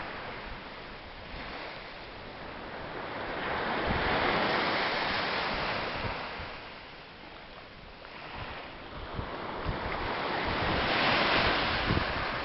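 Small sea waves breaking and washing up a sandy beach, the surf swelling about four seconds in and again near the end.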